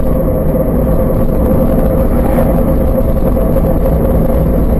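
Steady engine and road noise of a car heard from inside the cabin through a dashcam, with a constant faint whine over it.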